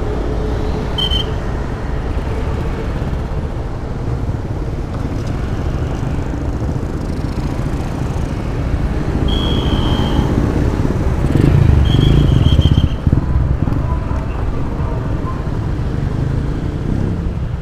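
Small motor scooter's engine running while riding through town traffic, with road and wind rumble; the sound swells louder for a moment about twelve seconds in. A few short high beeps sound over it.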